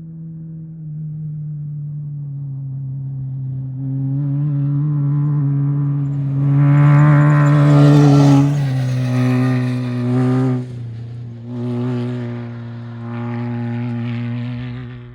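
An off-road race vehicle's engine running hard as it goes by. It builds to its loudest about seven to eight seconds in, drops in pitch, then eases off and comes back on the throttle twice before cutting off suddenly.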